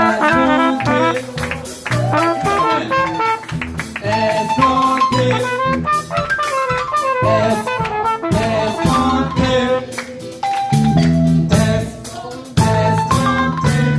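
Live band playing: a trumpet carries the melody over a drum kit and guitars.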